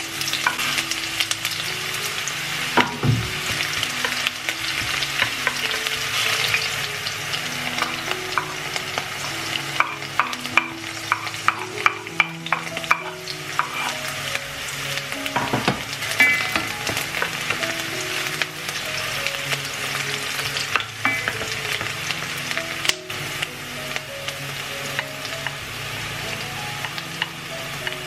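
Sliced onion and chopped garlic sizzling in hot oil in an enamel frying pan, a steady hiss broken by frequent clicks and scrapes of a spatula stirring and of food being tipped in.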